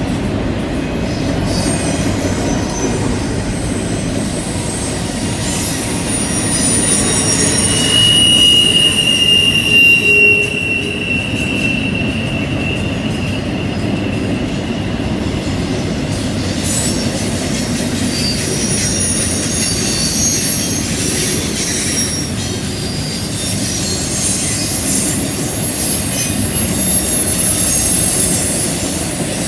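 Freight train rolling through a curve, its wheels squealing against the rail in high, wavering screeches over a steady rumble of cars. The longest squeal comes about a quarter of the way in.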